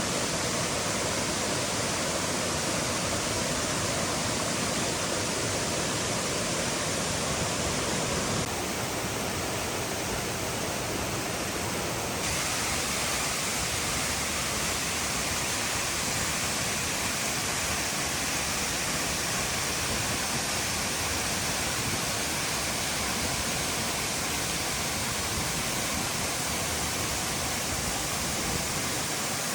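Heavy rain falling, a steady rushing hiss; its sound changes abruptly twice, about eight and twelve seconds in.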